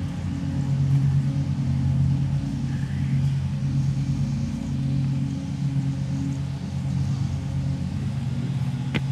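Machinery running with a steady low hum, and a single sharp click near the end.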